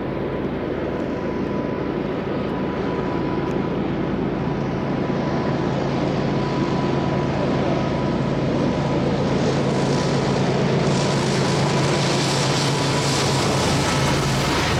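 Union Pacific diesel freight locomotives approaching and passing with a low steady engine drone that grows gradually louder. From about ten seconds in, the wheels' rattle on the rails rises as the lead units go by.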